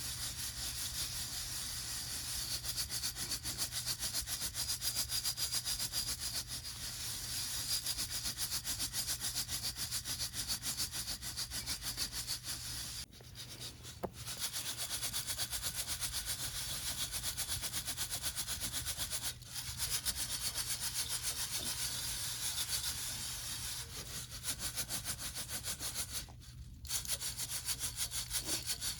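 Coffee beans rattling in a Uniflame hand-held mesh roaster as it is shaken rhythmically over a campfire, with three short breaks in the shaking.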